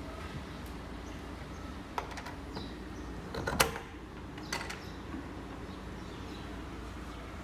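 A few knocks and clicks on a panelled door, in scattered clusters, the loudest sharp one about halfway through, over a steady low hum.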